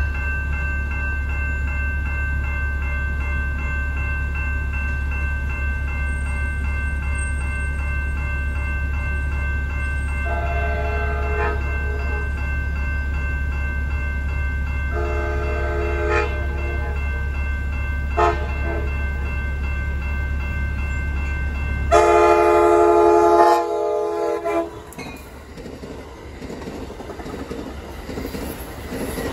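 Amtrak Surfliner train sounding its horn in the standard grade-crossing pattern: two long blasts, a short one and a final long one, the last the loudest. A crossing warning bell rings steadily underneath, and near the end the train's wheels and cars begin rumbling past.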